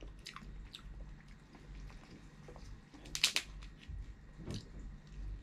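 Cooked blue crab shell being cracked and picked apart by gloved hands: scattered small clicks and cracks, with a louder cluster of sharp cracks about three seconds in, mixed with soft chewing.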